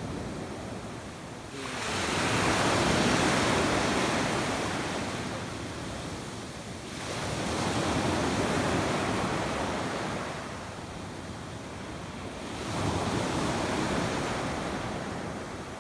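Sea waves washing in, three slow swells of surf about five to six seconds apart, each building and fading over several seconds.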